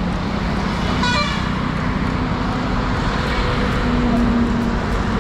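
Motor vehicle engines and road traffic running steadily, with a short horn toot about a second in.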